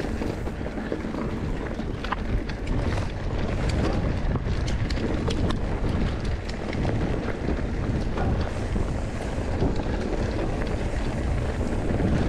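Wind buffeting the microphone over the rumble of mountain bike tyres rolling fast on a dry dirt trail, with frequent short clicks and rattles from the bike and stones over small bumps.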